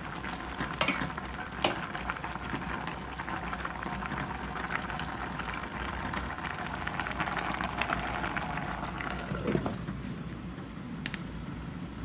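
Stainless steel pot of saluyot and mixed vegetables bubbling steadily on a gas stove while a ladle stirs it, with a few sharp clinks of metal against the pot.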